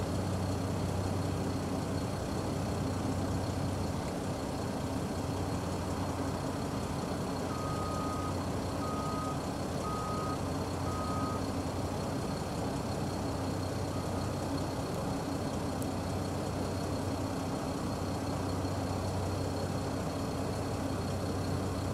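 Brantly B-2B helicopter's piston engine and rotor running steadily with the skids on the ground, a low hum under a steady mechanical noise. A vehicle's reversing beeper sounds four times, about a third of the way in.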